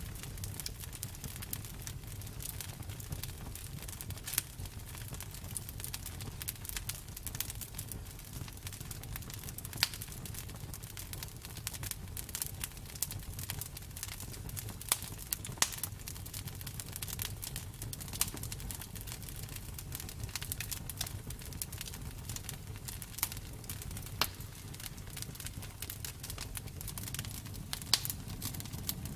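Campfire burning: a steady low rumble of the flames with irregular crackling and sharp pops of burning wood, a few pops standing out louder.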